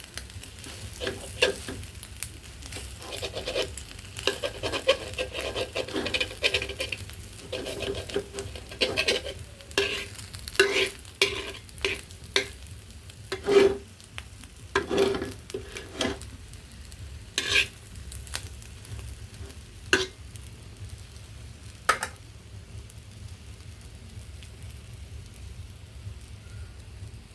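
Egg frying in a pan: a faint sizzle under repeated scrapes and knocks of a spatula against the pan. The strokes come thick at first, thin out through the second half and stop well before the end, leaving the sizzle and a low hum.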